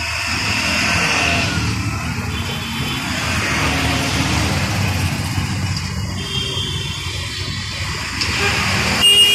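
Dense city traffic at a busy intersection: cars, CNG auto-rickshaws and motorcycles running past in a steady rumble of engines and tyres. A horn sounds briefly near the end.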